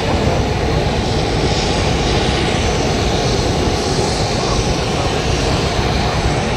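Military rotor aircraft (helicopters or tiltrotors) running close by: a loud, steady noise of engines and rotors that does not let up.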